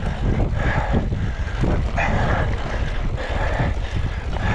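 A mountain bike on a rough trail, heard from the rider's camera: wind buffets the microphone in a constant low rumble, and bursts of tyre and trail noise come back about once a second.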